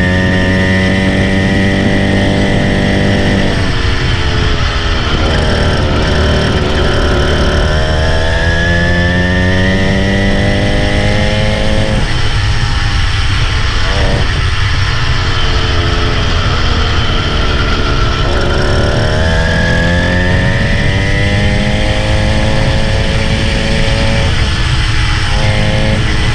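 Small engine of a motorised bicycle kit running under load, its revs climbing and then dropping back several times as the bike accelerates and slows, with wind rumble on the microphone.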